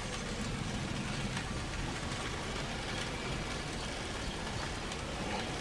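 Fish patties and green asparagus sizzling on a hot grill plate: a steady crackling hiss.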